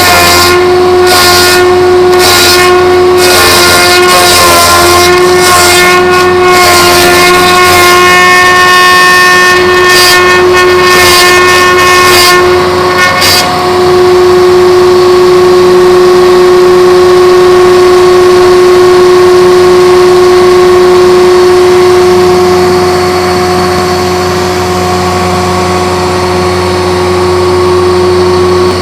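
A homemade log-rounding machine runs with a loud, steady whine. For about the first half, harsh, uneven rasping noise rides on it, typical of the cutter working the log. It stops about halfway through, leaving the machine running with just the steady whine.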